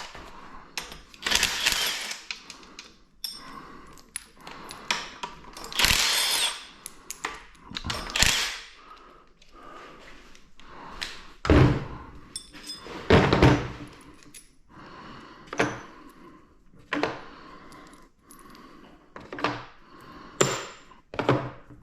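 Metal engine parts and hand tools clattering, scraping and being set down with thunks during an engine teardown, with several rattling bursts about a second long and a couple of heavier thuds past the middle.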